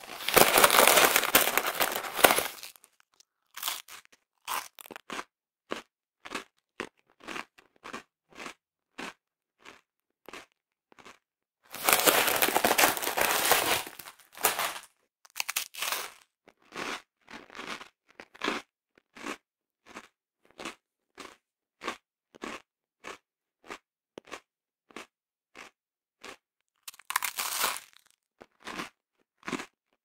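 Close-up sound of someone eating crunchy biscuits: short chewing crunches about two a second, broken three times by a longer, louder stretch of crunching, once at the start, once about twelve seconds in and once near the end.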